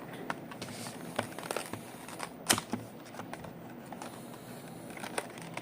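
Packaging of a boxed model train being handled and opened by hand: scattered small clicks and light rustling, with one sharper click about two and a half seconds in.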